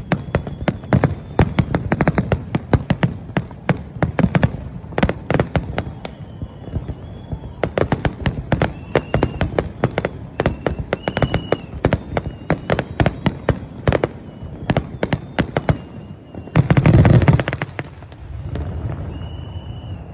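New Year's fireworks going off: a fast, dense run of sharp bangs and crackles, with one louder, longer burst near the end.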